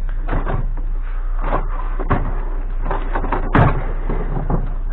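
A series of knocks and clunks, with one sharp, louder bang a little past halfway: things being handled and set down, or a door or hatch being shut.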